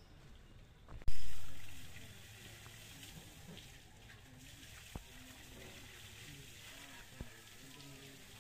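Water from a garden hose spraying and splashing onto an elephant's hide, a steady hiss. A sudden loud thump about a second in fades away over about a second, and a few faint clicks come later.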